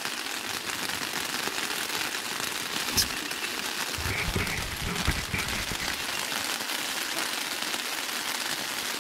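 Rain pattering on the fabric of a Discovery Adventures Lake Tahoe II pop-up tent, heard from inside as a steady hiss of drops. There is a single sharp tap about three seconds in, then low bumps and rustling for a couple of seconds.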